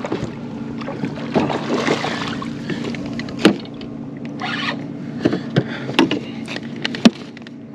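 Spinning reel being cranked while fighting a hooked speckled trout, with several sharp knocks from the rod and reel being handled against the kayak, over a steady low hum.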